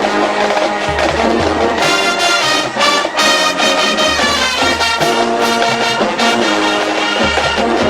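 Marching band playing loudly: sustained brass chords with accented hits about once a second, and low bass notes coming in for stretches of about a second.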